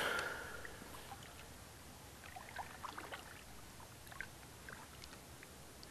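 Faint water around a kayak: quiet lapping and trickling with scattered small drips and ticks. A short rush of noise fades out at the very start.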